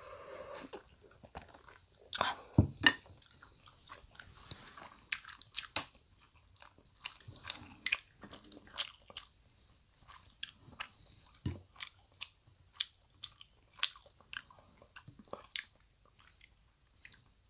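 Close-miked chewing and biting of soft Korean fish cake (eomuk) soaked in broth, with irregular wet mouth clicks and smacks.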